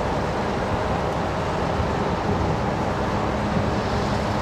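Steady low rumble of distant city traffic mixed with wind noise on the microphone, with no firework bangs heard yet.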